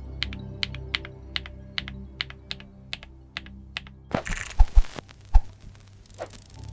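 Mechanical keyboard with Akko Creamy Yellow U1 linear switches, single keystrokes about two or three a second over soft background music. About four seconds in, a short burst of noise and a few deep thuds.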